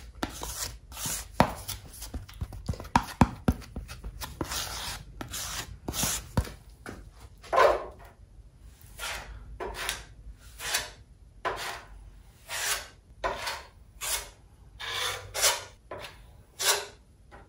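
Plastic spreader scraping body filler. First it makes quick, sharp scraping taps as the filler and hardener are mixed on a mixing board. Then it makes longer scraping strokes, about one a second, as the filler is spread over the bare metal of a car trunk lid.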